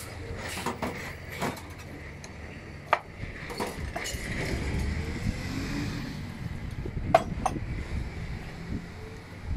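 Scattered knocks and clinks of a knife cutting limes on a cutting board and of bottles and glassware being handled, over a steady low rumble; the sharpest knocks come about 3 seconds in and about 7 seconds in.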